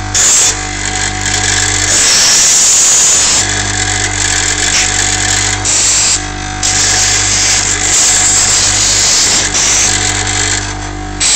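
A small power tool's motor running steadily with a hissing, grinding noise over it. The noise eases off briefly near the start and about six seconds in.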